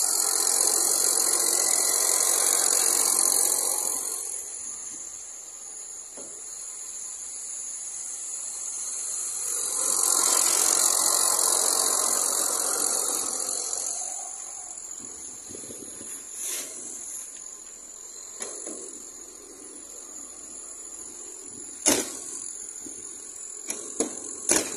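Ford Aspire's 1300 cc engine running with the hood open: a steady engine noise that swells louder twice. In the second half come a few sharp clicks, the last of them from the car's door handle being worked.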